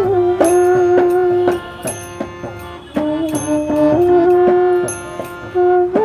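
Background instrumental music: a melody that holds long notes and slides between them, over a steady hand-drum beat.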